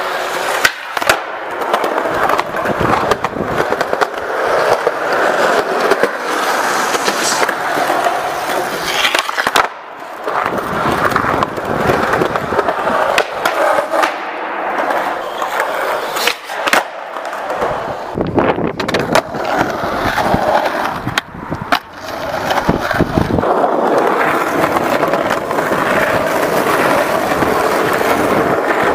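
Skateboard wheels rolling on concrete, broken by repeated sharp clacks of the board popping and landing.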